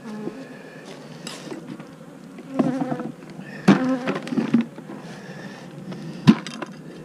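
Honeybees buzzing around an opened hive, with several knocks and clatters of wooden hive parts being handled; the sharpest knock comes near the end.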